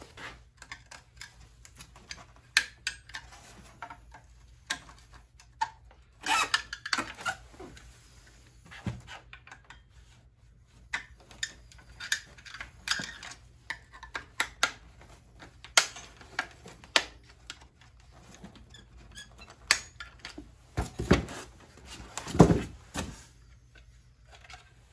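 A new HEI distributor being handled and its cap taken off: scattered clicks, taps and scrapes of plastic and metal, with a few heavier thumps near the end.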